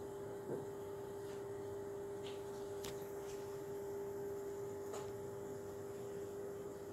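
Steady electrical hum at one pitch, with a soft knock about half a second in and a few faint clicks later.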